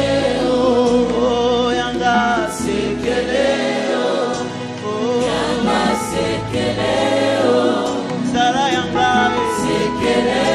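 Gospel worship song: a choir singing over instrumental backing.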